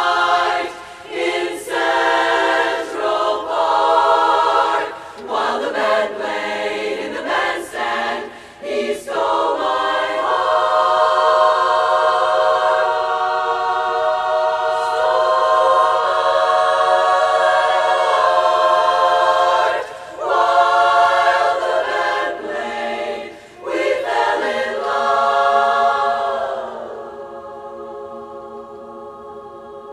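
A large women's barbershop chorus singing a cappella in close harmony, in phrases with one long held chord about ten seconds in. About 27 seconds in the singing drops to a soft, sustained chord.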